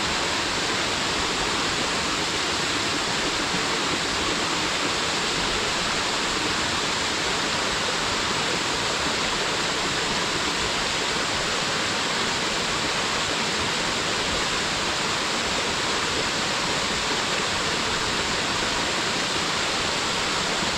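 Waterfall: a steady rush of falling water, even and unchanging, with its strongest part in the hiss above the low rumble.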